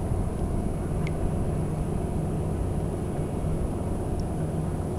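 Steady low drone of a distant motor, with wind rumbling on the microphone.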